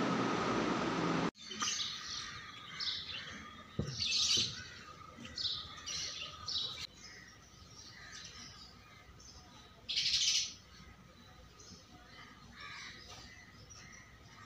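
A steady hiss that cuts off abruptly about a second in, then small birds chirping in short, high calls, several in quick succession, with one loud call about ten seconds in and softer ones after.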